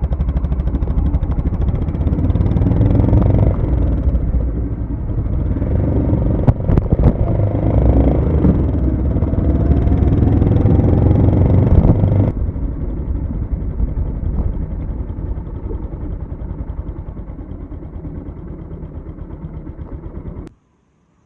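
Honda GB350's single-cylinder engine running as the motorcycle rides off, its pitch rising as it speeds up about eight to eleven seconds in. About twelve seconds in it drops to a quieter, steady run, and the sound cuts off suddenly near the end.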